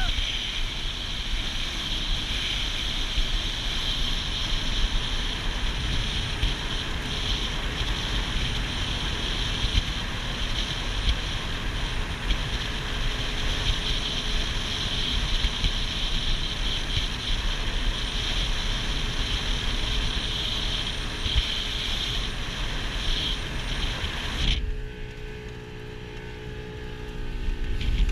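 Motorboat under way: a steady rush of wind and water over a low engine rumble. A little over three-quarters of the way through, the rush drops away for about four seconds, leaving the engine's steady hum, then comes back.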